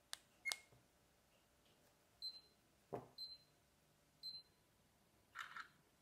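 AKASO EK7000 action camera's photo self-timer: a couple of clicks, then three short high beeps about a second apart counting down from three, then a brief shutter sound as the photo is taken.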